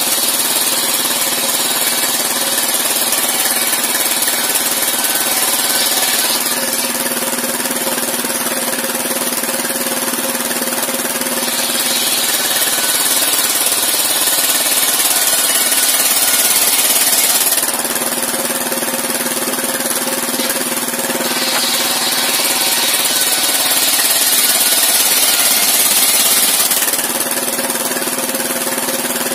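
Engine-driven circular sawmill running continuously while its large blade rips timber lengthwise into planks. Three cuts of about six seconds each, with the engine running unloaded in the gaps of about five seconds between them.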